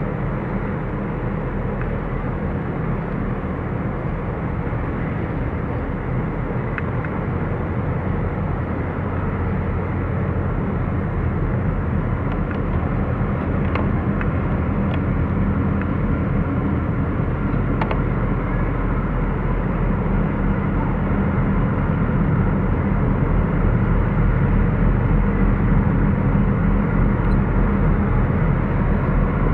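Harbour tug's diesel engines running with a steady low drone while it pushes at a container ship's bow, growing a little louder toward the end.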